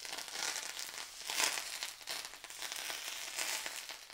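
Smoking-hot rapeseed and sesame oil poured over fresh spring onion, coriander, ginger and chili, sizzling and crackling as it sears them. The sizzle dies down near the end.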